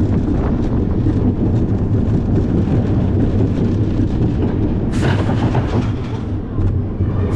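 Family roller coaster car running along steel track: a steady low rumble with wheel clatter, and a brief hissing rush about five seconds in.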